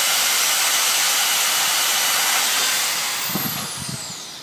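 A power tool runs with a loud steady hiss, then is switched off and spins down with a whine falling in pitch over the last second or so. A few low knocks come as it winds down.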